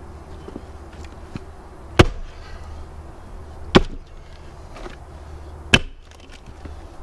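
Sledgehammer striking a steel splitting wedge set in a log round: three sharp metal-on-metal blows, roughly two seconds apart.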